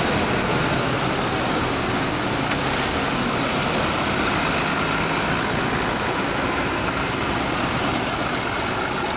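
Diesel tractor engines running as a procession of tractors drives past one after another: a modern tractor, a blue New Holland, then a vintage red Massey Ferguson. The engine noise is steady, and a fast, even ticking comes in near the end.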